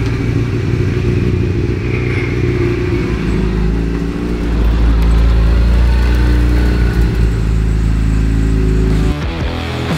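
Supercar Lites rallycross car's engine running at low, fairly steady revs as the car drives slowly, growing a little louder midway and breaking off abruptly near the end.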